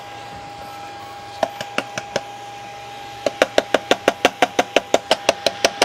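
Minleaf NPS3010W switch-mode bench power supply being knocked: a few separate knocks, then a fast run of about seven knocks a second from a little past halfway to the end. It is being beaten to see whether an intermittent connection is making its output noise jump around.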